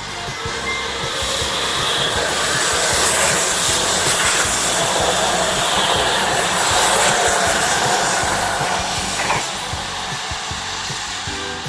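Tobu 100 series Spacia electric train passing at speed: a rush of running and wheel noise that swells about a second in, stays loud through the middle, and falls away about nine and a half seconds in.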